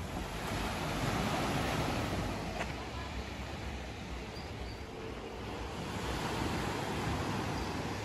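Sea surf washing onto the shore, swelling and easing twice.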